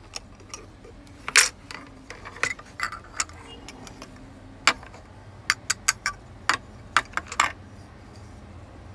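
Plastic shape-sorter toy pieces clicking and knocking together in irregular taps, some with a short ring, coming quicker in a run near the end.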